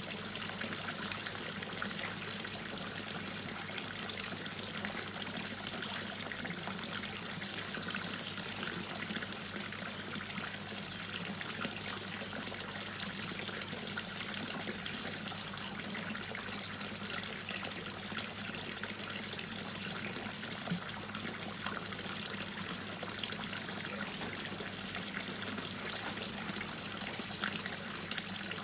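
Water dripping and trickling steadily: a continuous wash of running water dotted with many small drip splashes.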